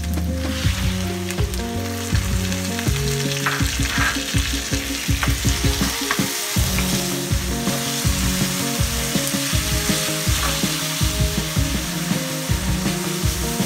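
Diced onions sizzling in hot oil in a wok, with a wooden spatula scraping and stirring against the pan. A louder burst of sizzling comes about four seconds in, as chopped tomatoes go into the oil.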